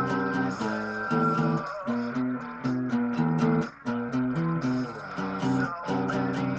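Acoustic guitar strummed in a steady rhythm, moving through a sequence of chords.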